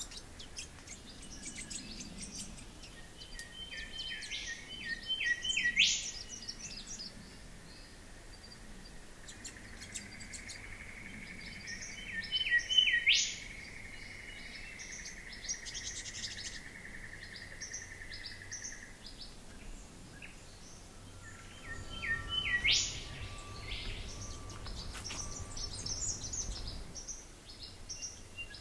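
Rainforest birds calling: three times, a phrase of short high chirps ends in a sharp upward-sweeping note, and a steady high tone holds for several seconds through the middle.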